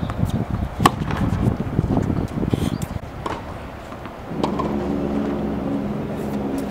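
Tennis ball struck by racquets and bouncing on a hard court: a few sharp pops spaced out through a rally, one at the start and one at the end. A low steady hum of several tones comes in about four seconds in.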